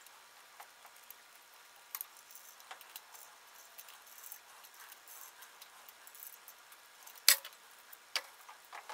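Small metal clicks and ticks of a tap and T-handle tap wrench cutting 1/4-20 threads into the old float needle seat of a Briggs & Stratton carburetor. A sharper click comes about seven seconds in.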